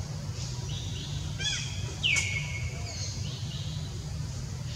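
Forest birds chirping and calling, with one louder call about two seconds in that slides down in pitch and then holds for about a second. A steady low rumble runs underneath.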